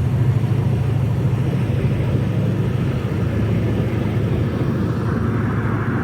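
MARC commuter train running past, a steady low rumble with a deep hum from the train on the rails.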